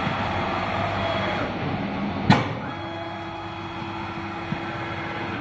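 ATC CNC router running through a tool-change move with a steady mechanical hum. A single sharp burst about two seconds in, typical of the spindle's pneumatic tool release. After it comes a steady whine.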